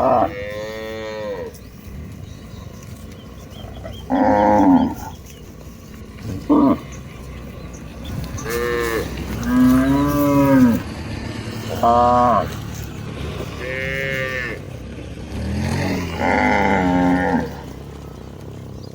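Herd of cattle mooing, about nine calls from more than one cow in turn, some short and some drawn out, at differing pitches.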